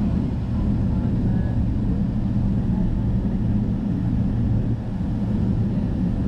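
Steady low drone inside the economy cabin of a Boeing 777-300ER, the airliner's engines and passing air heard through the cabin walls at an even level.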